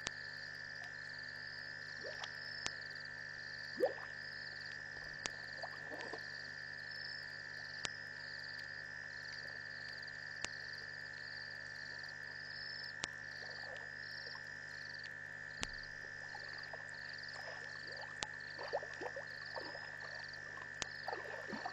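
Night chorus of frogs and insects at a waterhole: a steady high trill, a short high chirp repeating about once or twice a second, and scattered lower croaks, with a few sharp clicks.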